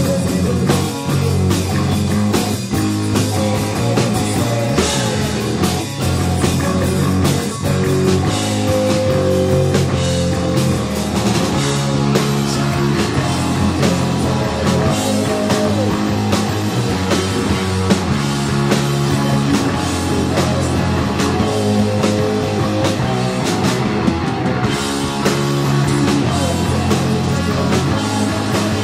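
A rock band playing a song live, with guitar and a drum kit keeping a steady beat.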